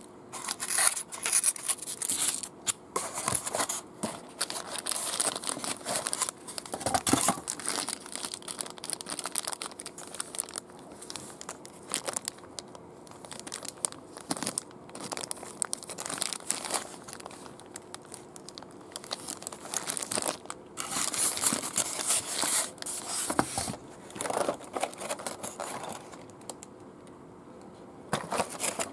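Clear plastic packaging crinkling and rustling in irregular bursts as it is handled: a plastic bag around an action figure and a clear plastic blister tray. The rustling goes quieter for a couple of seconds near the end.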